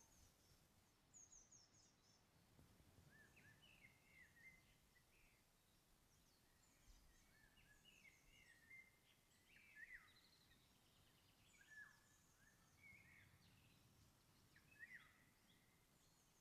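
Near silence outdoors, with faint bird calls scattered throughout: short chirps and quick downward-sliding notes, a little louder about ten seconds in and again near the end.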